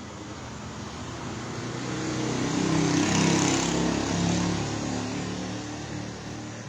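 A motor vehicle passing by, its engine and road noise growing louder to a peak about three seconds in, then fading away.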